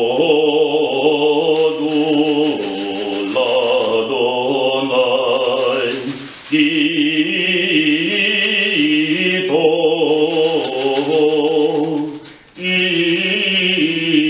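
A man's voice chanting a Hebrew liturgical melody from a prayer book, pausing briefly twice. Over the chant, a lulav (palm branch bound with myrtle and willow) is shaken, giving spells of rapid, dry rattling rustle that each last a second or two, several times.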